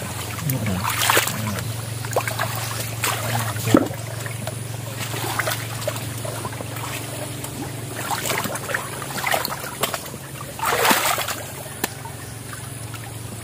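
Muddy water sloshing and splashing as a man wades and gropes by hand into a flooded ditch bank. Sharper splashes come now and then, the loudest a little before the end, over a steady low hum.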